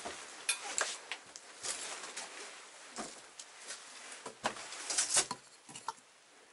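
Footsteps crunching over fallen ceiling debris on an old floor: irregular small crackles and knocks, with a denser cluster of crunches past the middle.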